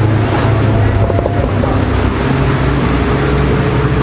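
A car engine running steadily close by, with a loud, low, even note.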